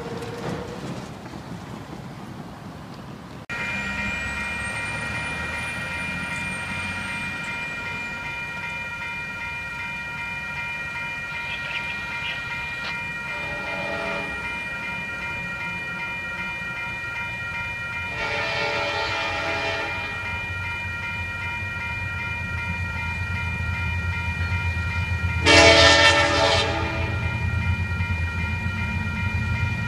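Grade-crossing warning bell ringing steadily while a diesel locomotive approaches, its rumble growing. Its air horn sounds three blasts: a weaker one, a longer one, and the loudest near the end. The first few seconds, before a cut, hold only faint street traffic and wind.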